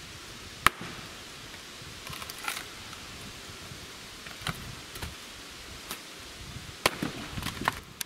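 Axe striking wood in sharp, irregular blows, chopping kindling to start a fire: one loud strike just under a second in, a few scattered knocks through the middle, and a quick run of strikes near the end.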